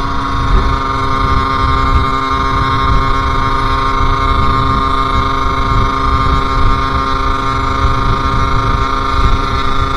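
Sherco SM-R 50's 50cc two-stroke engine running at a steady, unchanging speed while being ridden, with wind rumbling on the microphone.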